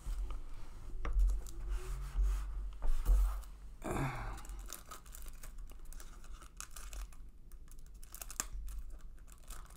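Fingers crinkling and tearing the clear plastic wrapper of a sealed 1995-96 Flair basketball card pack, with dull handling bumps in the first few seconds.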